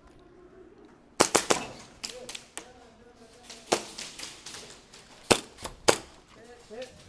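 Airsoft guns firing. A quick run of four or five sharp cracks comes about a second in, then scattered single shots, with two loud cracks near the end.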